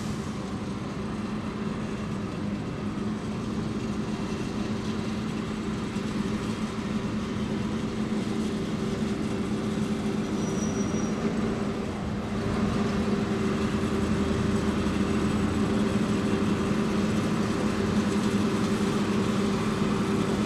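The engine of an approaching rail maintenance-of-way vehicle, running steadily out of sight with an even hum. It gets louder about twelve seconds in.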